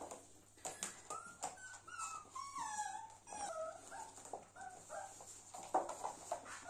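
Corgi puppy making high-pitched whining, growly play noises while tugging on a rope toy, the pitch sliding up and down for a few seconds from about a second in. Scattered sharp clicks come from the play on the hard floor.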